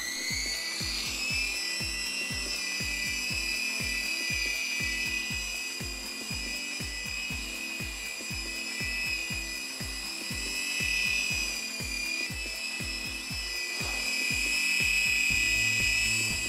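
Air Hogs Hawk Eye micro helicopter's electric motors and counter-rotating rotors spinning up with a rising high whine, then holding a steady, slightly wavering whine in flight. Background music with a steady beat plays underneath.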